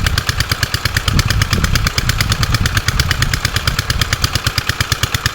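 Small engine running steadily with a fast, even chugging beat.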